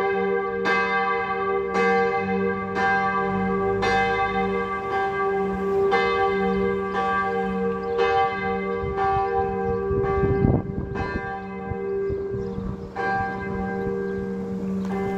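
A single church bell tuned to g', cast in 1959 in St. Florian, swings and is struck by its clapper about once a second for the death knell. Its hum note and overtones ring on steadily between strokes. The strokes grow weaker near the end, and there is a brief low rumble about ten seconds in.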